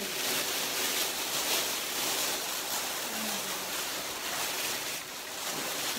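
Plastic cooking bags crinkling and rustling as several people pull them open by hand, a steady crackly rustle throughout.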